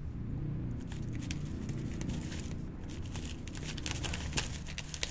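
A knife cutting into a thick desert rose (Adenium) stem: scattered small cracks and crackles, growing denser near the end, over a steady low rumble.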